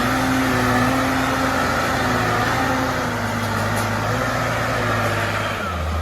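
A heavy logging truck's engine running steadily, its pitch shifting lower about five and a half seconds in.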